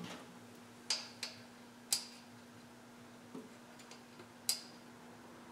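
A handful of light, sharp metal clicks and taps as tools are handled at a small engine's cast cylinder block, over a faint steady hum that stops near the end.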